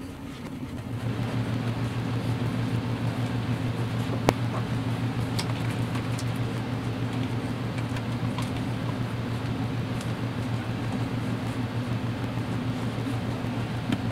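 A steady machine hum, fan-like, comes up about a second in and holds even, with a few faint clicks over it.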